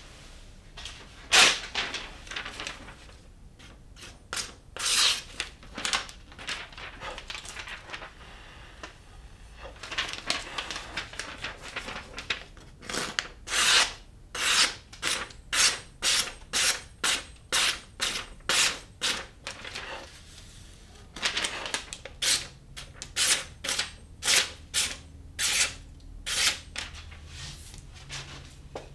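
Knife being sharpened on a Naniwa Professional 600-grit whetstone: the blade scrapes back and forth across the stone in repeated strokes, about two a second, with a couple of short pauses.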